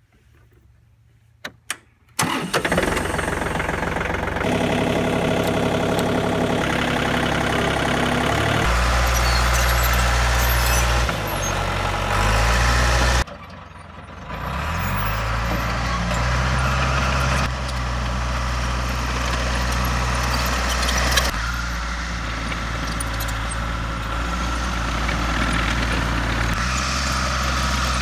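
Caterpillar D3 bulldozer's diesel engine starting about two seconds in, after a couple of sharp clicks, then running. Its pitch and load change in sudden steps, with a brief drop-off about halfway through before it picks up again.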